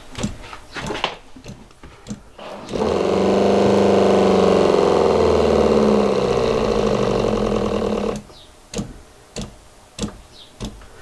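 Knocks and clicks of hands handling PEX fittings, then a SHURFLO 4008 Revolution 12-volt diaphragm water pump kicks on, runs with a steady hum for about five seconds and cuts off suddenly. The pump is cycling on a line that leaks at a PEX elbow.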